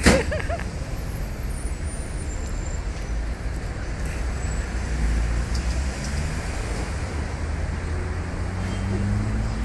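Steady road traffic with a low engine rumble, and a vehicle speeding up near the end. A sharp loud knock comes right at the start, and a few faint high chirps follow in the first couple of seconds.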